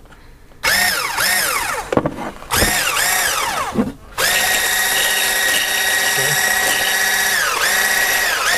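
Aicok hand blender's electric motor driving its whisk attachment in heavy whipping cream. It is pulsed on several times, its whine rising and falling with each pulse, then runs steadily from about four seconds in, dipping briefly near the end before picking up again.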